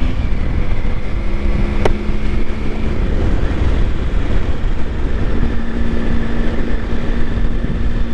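Motor vehicle on the move at steady speed: a low engine drone with a steady hum that steps up slightly in pitch about five seconds in, and wind rushing over the microphone. A single sharp click about two seconds in.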